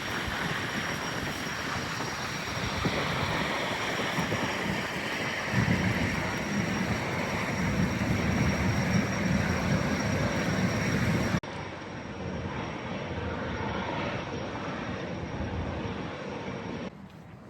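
Jetfoil high-speed ferry under way: its gas-turbine engines and water-jet drive make a steady rushing noise with a thin high whine. The sound cuts off abruptly twice, about 11 seconds in and near the end, each time giving way to a quieter stretch of similar noise.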